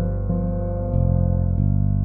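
Instrumental background music, with held notes that change about every half second.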